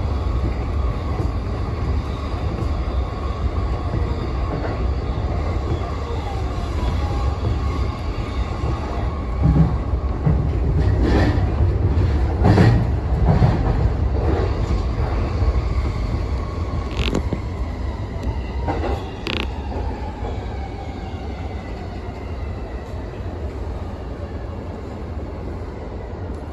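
Keihin-Tohoku Line E233-series electric commuter train heard from the driver's cab, running with a steady low rumble and a motor whine that slowly falls in pitch as it brakes into a station. A run of clunks comes from the wheels over joints and points about ten seconds in, and two short sharp sounds follow a few seconds later.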